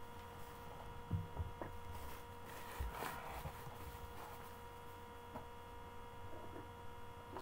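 Steady electrical hum, with a few soft knocks as a cardboard box is handled.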